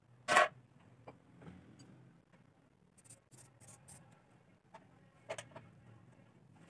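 Aerosol spray can hissing in about four quick short bursts around three to four seconds in, aimed at the old generator's rusty engine, with another short burst a little after five seconds. A brief, louder noise comes just after the start.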